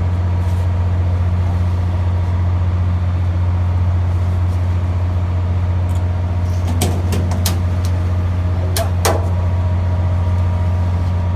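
Steady low drone of a ship's running machinery, unchanging in pitch and level. A few sharp knocks come around seven seconds in, and two more about two seconds later.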